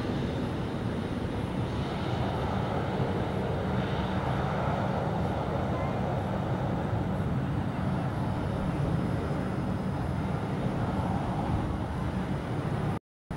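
Turbofan engines of a taxiing Embraer E-Jet airliner running at taxi power: a steady rumble with a hiss over it. The sound cuts out for a moment near the end.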